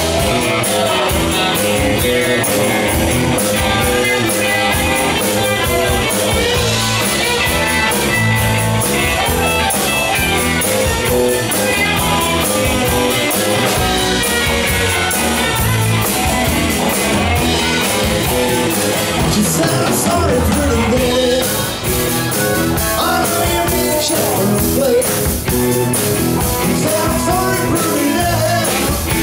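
A live rock and roll band playing drum kit, electric guitar and bass, with a male voice singing over it.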